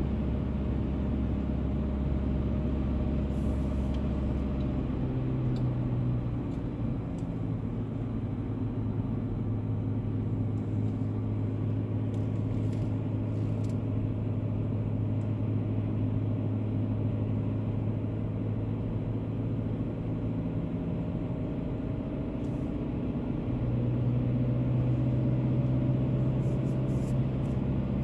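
Car driving, heard from inside the cabin: a steady engine hum with road and tyre noise. The engine note steps up about five seconds in and again near the end, growing slightly louder.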